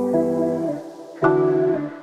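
Background music: sustained chords, with a new chord struck about a second in.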